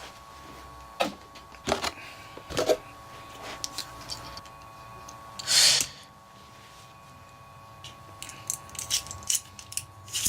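Clicks, knocks and rubbing of small plastic Beyblade parts and the plastic stadium being handled, with a faint steady hum underneath.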